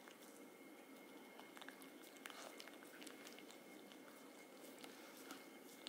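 Faint, scattered clicks and soft gnawing of a Chihuahua chewing and biting a cloth sock.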